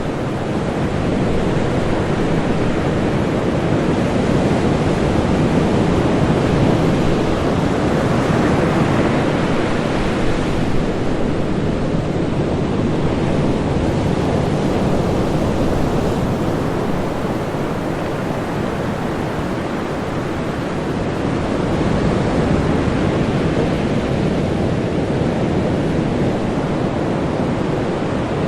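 Ocean surf breaking on a beach: a continuous roar of water that swells and ebbs slowly as waves come in, loudest twice, once about a quarter of the way in and again about three quarters through.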